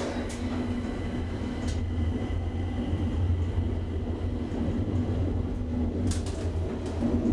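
Deve/Schindler hydraulic elevator car travelling in its shaft: a steady low hum from the hydraulic drive, with a few faint clicks about six seconds in.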